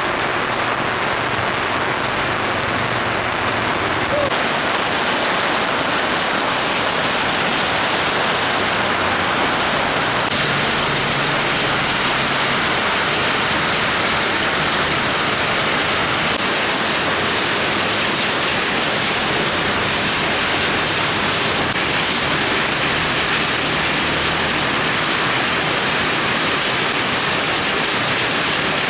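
Rain falling steadily, a dense, even hiss that holds at one level throughout.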